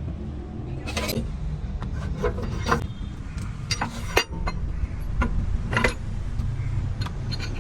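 Metal tools and parts clinking, knocking and scraping during work on a truck's rear axle, with scattered sharp knocks over a steady low rumble.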